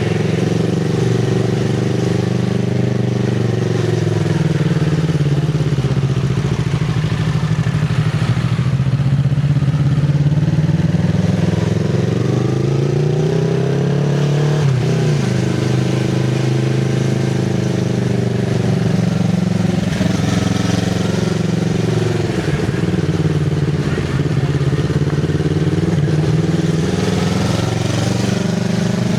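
Kawasaki Z650RS parallel-twin engine through an IXIL MK2 full exhaust with the dB killer fitted, running under way with the revs climbing and falling several times as the throttle is worked, with a sharp drop about halfway through.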